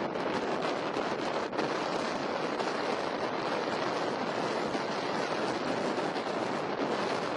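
Steady sea surf and wind noise, with wind rushing over the microphone.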